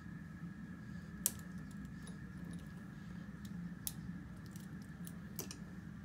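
Small metallic clicks and ticks from a Schlage deadbolt lock cylinder being handled and reassembled by hand. There are a few scattered sharp clicks, the loudest about a second in, over a steady low hum.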